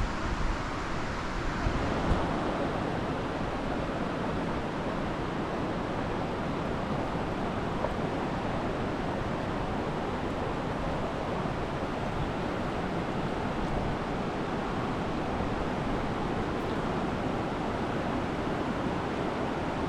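Steady rushing of the Snoqualmie River and falls. Wind buffets the microphone in the first two seconds.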